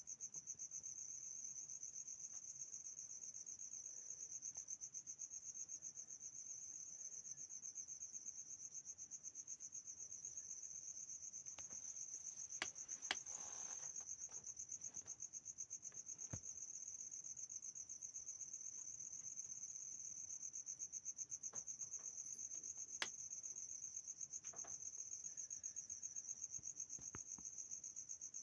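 Crickets chirping at night: a continuous high, rapidly pulsing trill, with a few faint sharp clicks about halfway through and again near the end.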